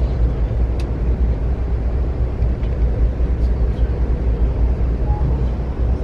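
Amtrak passenger train running along the track: a steady low rumble with a few faint clicks.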